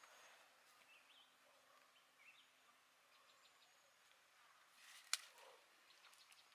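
Near silence with a few faint short chirps early on and one sharp click about five seconds in.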